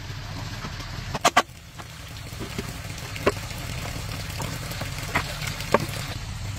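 Two quick blows of a small hammer on a wooden box about a second in, followed by a few lighter knocks of wooden boards being handled and set down.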